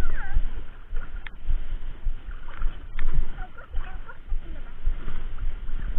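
Legs wading through shallow muddy floodwater: irregular sloshing and swishing with each step.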